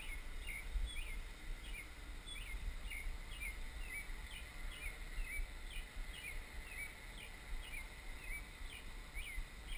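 A bird chirping over and over, short calls repeating about twice a second, over a low steady rumble.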